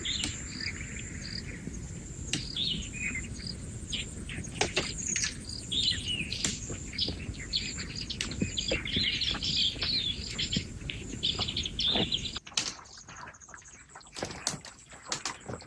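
Wild birds chirping and calling in many short phrases over a low rushing background and a thin, steady high tone. About twelve seconds in, the background drops away suddenly and a quieter stretch follows with scattered sharp clicks and taps.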